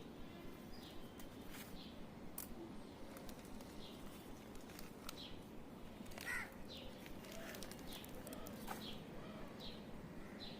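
Birds chirping: short high chirps repeated about once a second, with one louder call a little past the middle, over a faint steady low hum.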